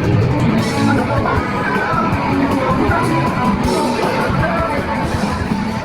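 Loud music with guitar, in a rock style.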